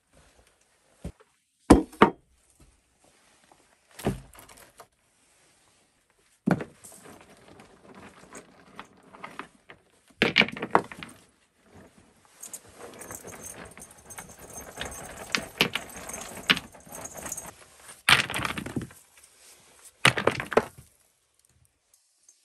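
A few sharp knocks from a wooden door and steps, then stones clacking and clinking together as they are handled out of a cloth sack at a stone hearth, with the sack rustling between the clusters of knocks.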